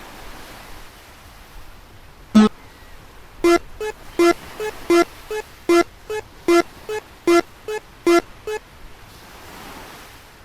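A railroad crossing warning bell ringing in its steady clanging rhythm, two tones alternating at about three strokes a second, for about five seconds before it stops. A single knock comes a second before the bell starts.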